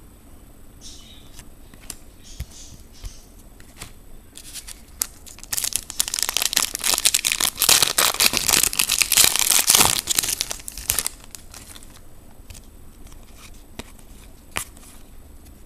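Foil wrapper of a trading-card pack being torn open and crinkled, a dense crackling for about six seconds in the middle, with faint clicks of cards being handled before and after.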